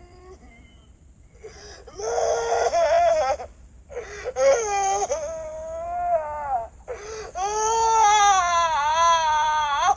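Loud wailing cries, three long sobbing wails one after another, the pitch wavering up and down, starting about a second and a half in.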